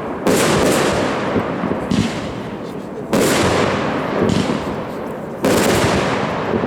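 A 40-shot consumer fireworks cake firing: three loud bursts about two and a half seconds apart, each trailing off in a long fading hiss, with lighter pops in between.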